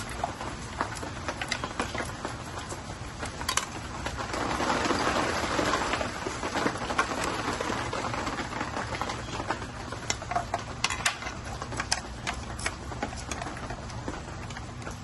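Wires and connectors handled and pushed into a plastic e-bike controller compartment: a string of small clicks and ticks of cable and plugs against plastic, with a louder rustling scrape about four to six seconds in.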